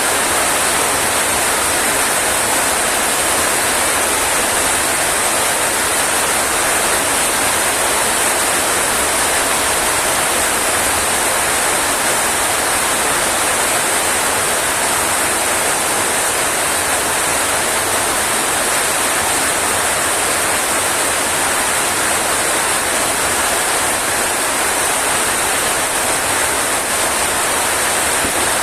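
Rain falling steadily, a dense even hiss that does not let up.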